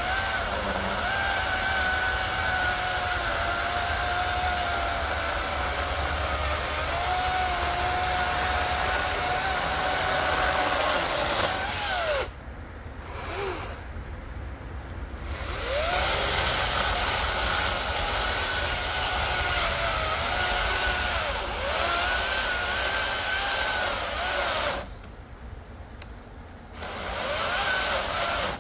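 Battery-powered chainsaw cutting into a thick log: a steady electric motor whine that sags in pitch as the chain bites into the wood. It stops about twelve seconds in, runs again a few seconds later, and stops and starts once more near the end.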